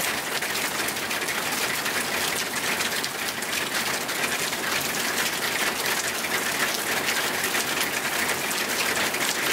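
Steady rain falling: a dense, even hiss made up of countless small drop impacts.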